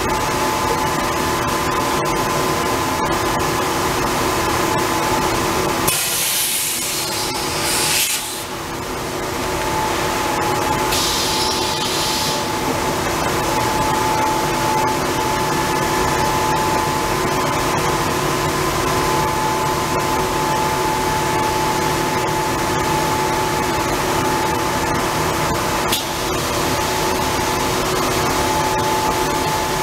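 Steady hum of automated paper-roll conveying machinery, with a few steady tones. About six seconds in comes a loud hiss lasting about two seconds, then a shorter one a few seconds later, with a single click near the end.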